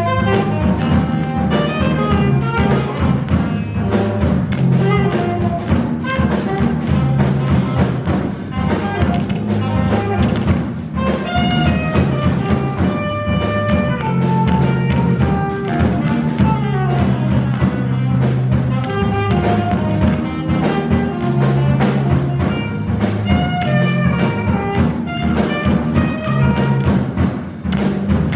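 Live jazz trio of saxophone, electric guitar and drum kit playing, with a melodic line over a steady low accompaniment and busy cymbal and drum strokes.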